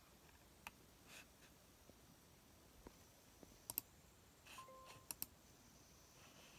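Near silence broken by a few sharp clicks: one about a second in, then two quick double clicks in the second half. A faint short beep dropping from a higher to a lower note falls between the double clicks.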